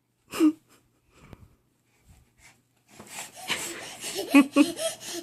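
A toddler making silly breathy vocal noises: a short voiced yelp under half a second in, then from about three seconds in a run of huffing, wheezy breaths and gasps with bits of voice mixed in.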